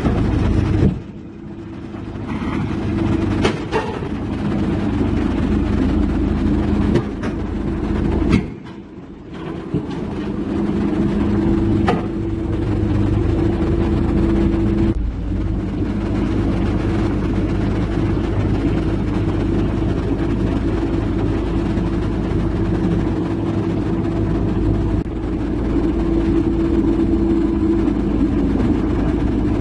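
Diesel engines of a Komatsu excavator and an Isuzu self-loader truck running steadily as the excavator is loaded onto the truck bed, with a few sharp clanks. The sound drops briefly about a second in and again about eight seconds in.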